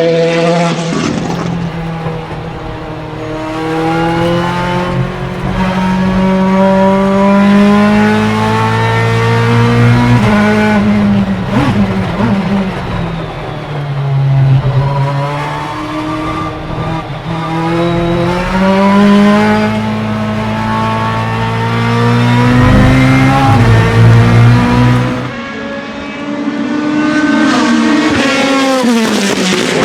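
Ferrari F430 GT2 race car's 4.0-litre naturally aspirated V8 accelerating hard, its revs climbing and stepping down at each upshift of the sequential gearbox. The revs fall away sharply about ten seconds in and again about twenty-five seconds in, then build again.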